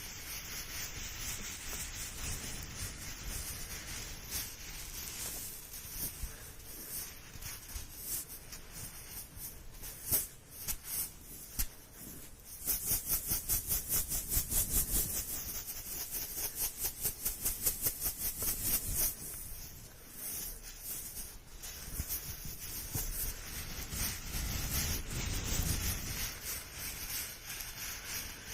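Close-up rubbing and scratching noises with a hissy edge. A little under halfway in comes a run of quick, even strokes, about five a second, for some six seconds.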